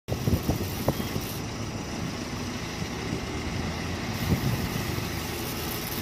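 Concrete mixer truck's engine running steadily, with a few knocks in the first second and another about four seconds in.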